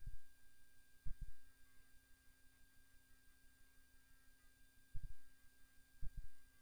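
A steady faint electrical tone over a low hum, broken by a few short, low, dull thumps, some of them doubled, near the start, about a second in, and twice more around five and six seconds in.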